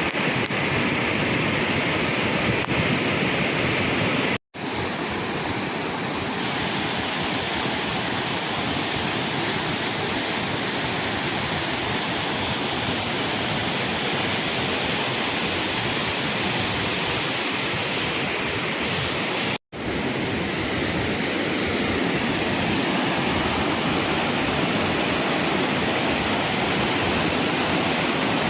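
Mountain river in spate after heavy rain, a loud steady rush of floodwater with the current rolling large stones along its bed. It cuts out for an instant twice.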